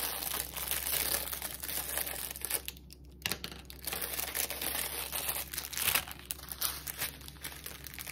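Thin plastic packaging of a diamond painting tool kit crinkling and rustling as small bags are handled and pulled open, with a short lull about three seconds in.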